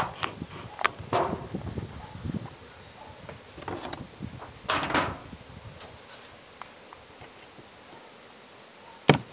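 Beehive being opened by hand: the sheet-metal roof knocked and lifted off, with a short scrape about five seconds in, then a sharp knock near the end as the wooden inner cover is lifted.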